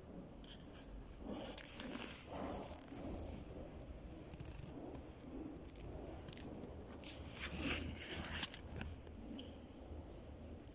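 Faint, irregular clicks, scrapes and rustles from a hand-held camera being carried and turned, over a low rumble, in two clusters: one a second or two in and a louder one a little past the middle.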